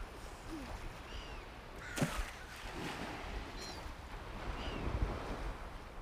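Gentle waves lapping on a sandy sea shore, with four short, high bird chirps scattered through and a brief knock about two seconds in.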